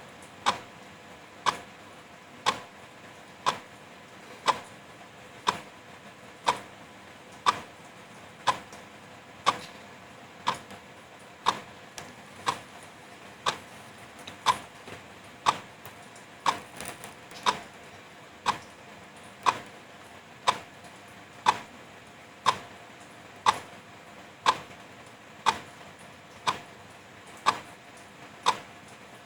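Wall clock ticking steadily, about one tick a second, over the steady hiss of drizzle.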